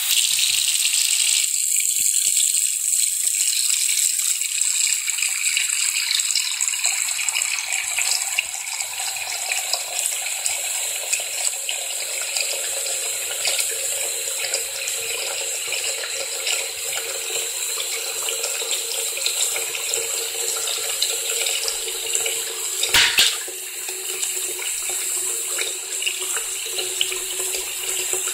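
Bathroom faucet running a steady stream into a sink basin that is filling with water. One brief, louder noise cuts through about three-quarters of the way in.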